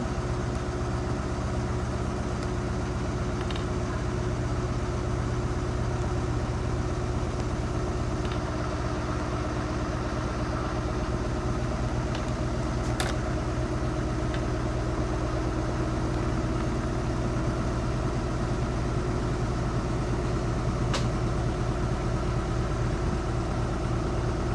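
Washing machine drum spinning in its final spin cycle: a steady whirring hum, with a couple of faint clicks.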